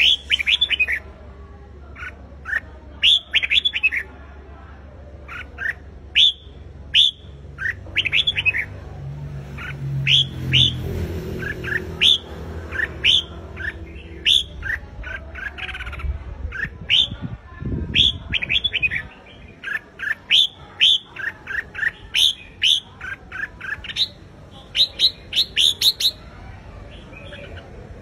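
Caged red-whiskered bulbul singing its competition song: short, quick phrases of clear whistled notes, repeated again and again with brief pauses.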